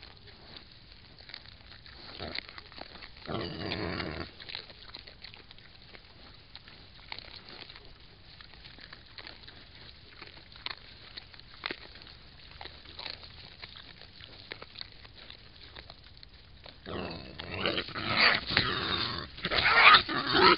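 Wild boars squealing and grunting as they fight over food: one harsh burst about three seconds in, then a loud run of squeals and grunts over the last few seconds. Faint scattered clicks and rustling between them as the boars root and feed.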